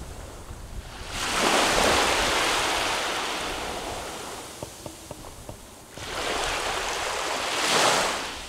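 Small waves washing up on a sandy beach. Two surges of surf rush: the first comes in about a second in and slowly fades, the second rises about six seconds in and peaks near the end.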